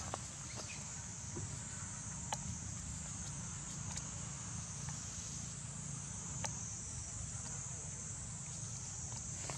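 A chorus of insects droning steadily at a high pitch, with a low rumble underneath. A few faint sharp clicks come about two, four and six and a half seconds in.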